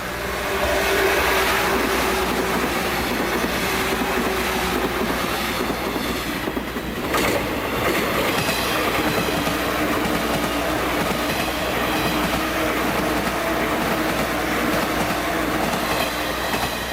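Electric train running past at close range, its wheels clattering over the rail joints, with a humming tone underneath.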